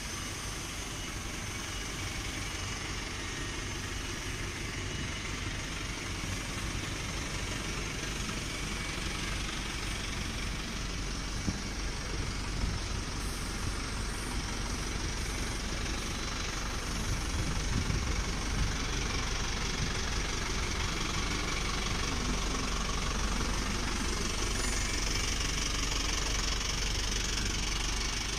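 Yuchai diesel engine of a 150 kW generator set running steadily at constant speed.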